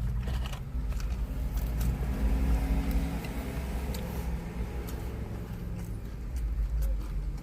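Inside a moving car's cabin: a steady low engine and road rumble, with a few faint clicks scattered through it.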